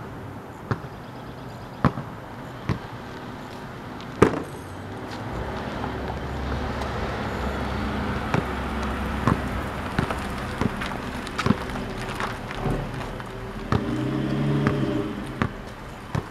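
Basketball bouncing on a concrete driveway: single sharp bounces about a second apart, one louder bang about four seconds in. A car passes in the background through the middle, and an engine hum swells and fades near the end.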